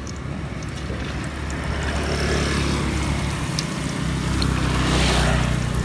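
Motor vehicle engine running in street traffic, a steady low hum that grows louder around five seconds in as it passes.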